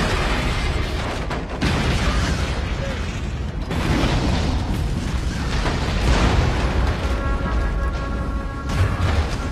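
Action-film soundtrack: heavy low booms and rumbling blasts from explosions, mixed with dramatic orchestral score. Fresh blasts hit about a second and a half, three and a half and six seconds in.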